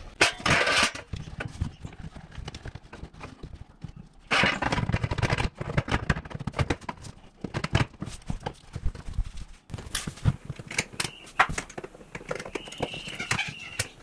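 Dishwasher's sheet-metal inspection panel being handled and fitted back into place: scraping and light metallic knocks and clatter, with a short high-pitched scrape near the end.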